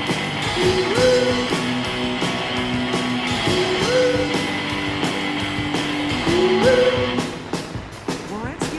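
Rock music with guitar and a steady beat. A phrase built on a rising, sliding note repeats about every three seconds, and the music thins out and drops in level near the end.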